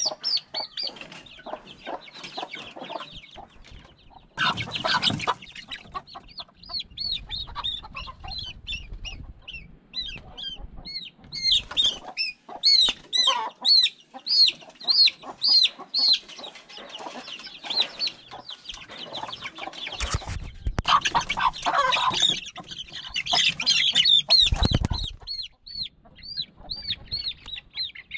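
Native chicks about a month old peeping loudly and repeatedly, with clucking, as they are caught by hand and separated from their mother hen into a wire cage. Three bouts of thumping and scuffling, about five, twenty and twenty-five seconds in, break in among the calls.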